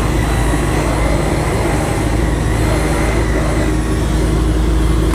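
Dyson V11 cordless stick vacuum running steadily with a thin high whine, over the low rumble of the moving car's cabin.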